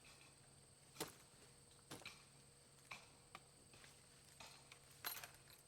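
Faint, scattered knocks and clicks during small-tree logging work, about one a second, with the sharpest near the start and a cluster near the end.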